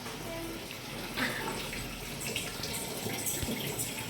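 Water running into the drum of an LG top-load washing machine as it fills at the start of its Tub Clean cycle, with a steady splashing.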